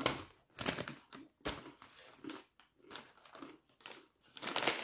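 Crinkling of potato chip bags being handled, mixed with crunching of kettle-cooked potato chips, coming in short crackly spells with brief pauses between them.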